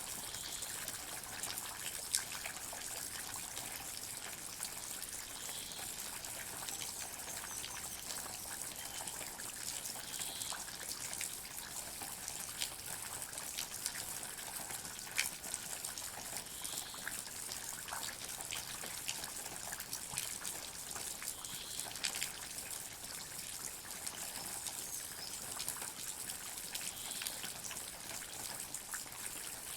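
Water dripping in a forest: many small drops fall irregularly over a steady trickling hiss, with a few louder single drops standing out.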